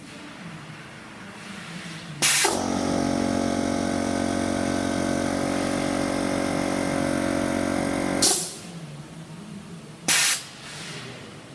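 A welding machine cycles: a sharp burst of air hiss, then a steady electrical hum with many overtones for about six seconds, cut off by another hiss, and a last short hiss about two seconds later.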